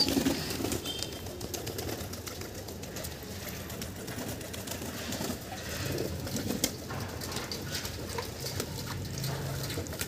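Domestic pigeons cooing low, with scattered small splashes and wing flutters as they bathe in a metal bowl of water.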